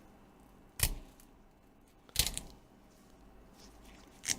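Three sharp clicks or snaps, one about a second in, a cluster of smaller ticks just after two seconds, and one near the end, as the cracked glass screen is prised off the tablet's plastic frame with a pry tool.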